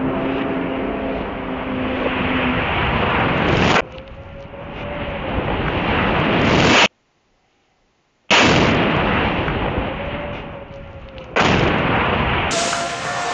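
Shoulder-fired rocket launcher blasts and rocket explosions downrange: long, loud rumbling noise. Midway the sound swells, cuts out completely for over a second, then comes back with a sudden blast that dies away. Another sudden loud blast comes near the end.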